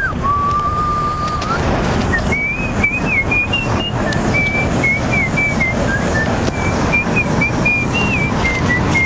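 A person whistling a tune: one held note, then a wandering melody of short higher notes. Street traffic noise runs underneath.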